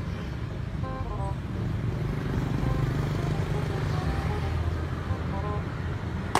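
Low, steady rumble of street traffic with background music of short melodic notes over it. Near the end, a single sharp pop, a balloon bursting.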